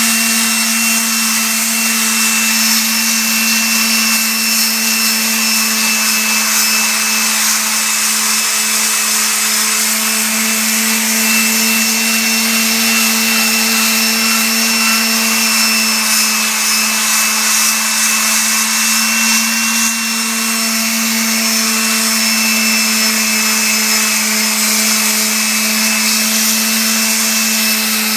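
Electric palm sander running steadily with coarse sandpaper against the face of a cast iron brake rotor, a constant motor hum under a grinding hiss: the rotor's rusty, grooved braking surface being dressed smooth by hand.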